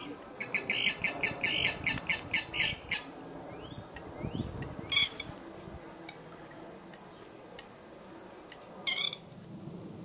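Common gallinule calling: a rapid run of about a dozen notes, roughly four a second, over the first three seconds, then a single louder call around the middle and another near the end.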